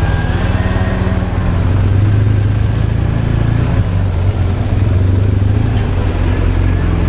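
BMW R1200RT's flat-twin engine running under way, a steady low engine note that varies only slightly.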